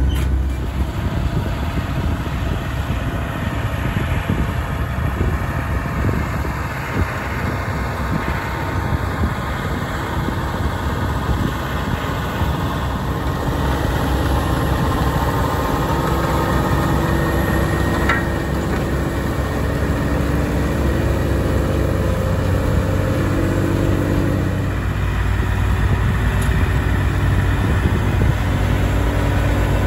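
Fendt 314 Vario tractor's four-cylinder diesel engine running steadily.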